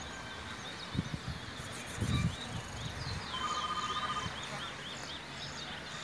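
Caged bullfinch singing: repeated short, high, sweeping chirps, with a quick run of them about halfway through.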